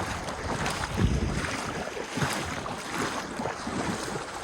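Water splashing and sloshing in uneven bursts, with wind buffeting the microphone.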